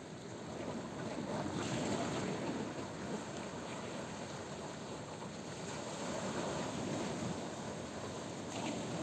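Black Sea surf: waves breaking and washing on the shore in a steady rush that swells twice, rising and falling with each wave.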